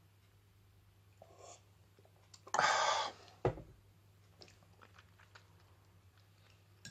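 A drinking glass set down on a wooden table with one sharp knock, just after a loud burst of noise lasting about half a second. A few faint small clicks come before it.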